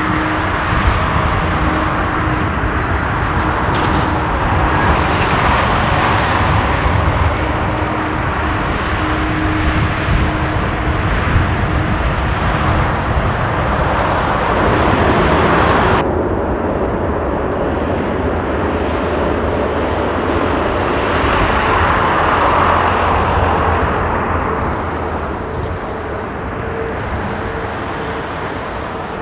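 Boeing 787-9 jet engines running at low taxi thrust: a steady jet hum and rumble with a faint held whine. About halfway through, the high hiss above it drops away abruptly.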